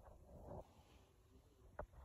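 Near silence: room tone, with a faint soft rustle early on and a single short click near the end.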